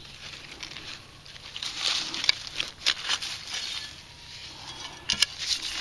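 Digging into hard, compact soil to recover a metal-detector target: scraping and crunching of a digging tool in dirt, with several sharp clicks as it strikes and breaks the soil.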